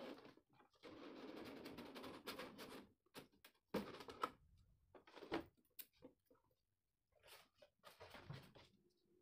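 Faint cardboard packaging handling: a rustling scrape as the sleeve slides off a transmitter box, then a scatter of light taps and knocks as the box is set down, and a little more rustling near the end.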